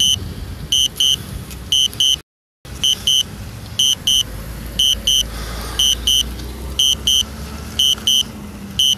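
Drone remote controller beeping in high double beeps about once a second, the alert it gives while the drone flies itself back on return-to-home. A low steady rumble runs underneath, and the sound drops out for a moment about two seconds in.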